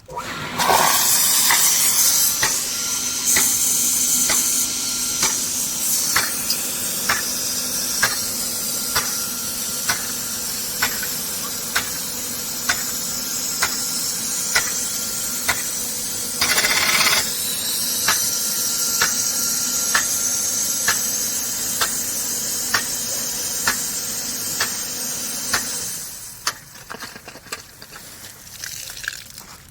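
PY30 impact rain gun sprinkler spraying water: a steady loud hiss of the jet, with a sharp click about every 0.7 s as the swinging drive arm strikes and steps the gun round. The spray starts suddenly just after the start and dies down near the end.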